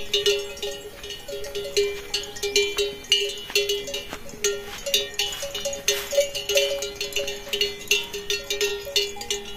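Bells worn by grazing livestock clanking irregularly, a few strikes a second, with two or more bells of different pitch ringing together.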